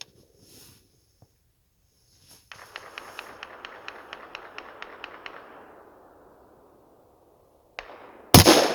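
A single loud rifle shot near the end from a .25-06 Remington Savage Axis bolt-action rifle, with a light click just before it. Earlier there are a few seconds of faint hiss with rapid light ticking.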